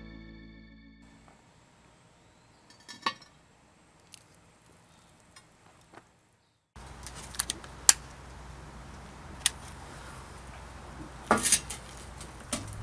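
Acoustic guitar music fading out, then a few faint clicks. After a short gap comes steady outdoor background noise with several sharp metallic clicks and clinks, the loudest about eight seconds in and again near the end.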